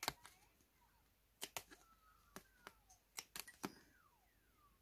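Small scissors snipping notches into double-sided sticky tape along a curved card edge: a handful of short, sharp, irregularly spaced snips, faint against near silence, with a few faint sliding whistle-like tones between them. The notches let the tape follow the curve.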